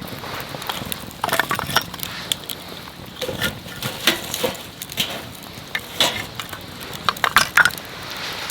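Firewood burning in a campfire, crackling and popping irregularly over a low hiss.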